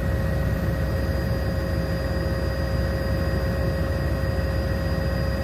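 Helicopter in flight heard from inside the cabin: a steady engine and rotor drone with a constant whine over it.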